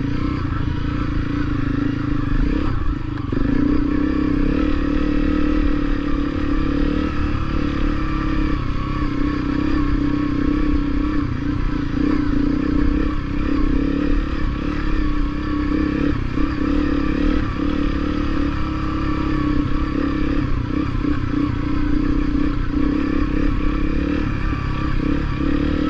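Honda CRF250L's single-cylinder four-stroke engine running steadily while the trail bike is ridden over a dirt trail.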